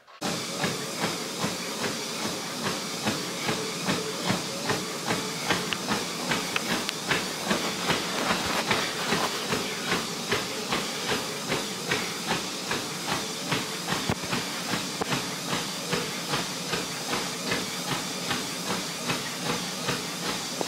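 Treadmill running with a steady hiss from the belt and motor, and a runner's footfalls landing on the belt in an even rhythm, about two a second.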